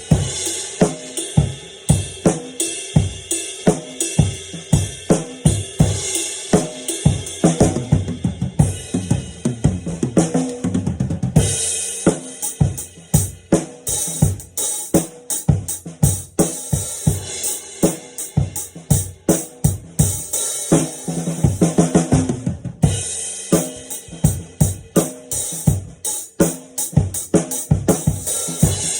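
Drum kit played continuously: bass drum, snare, hi-hat and cymbals in a dense rhythmic pattern, with cymbals ringing over the hits.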